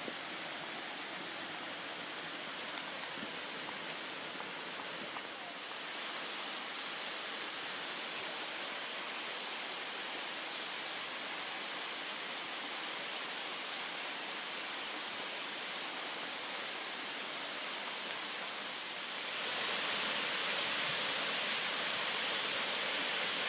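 Steady rushing of a stream and waterfall, a continuous hiss of falling water that gets louder and brighter about nineteen seconds in.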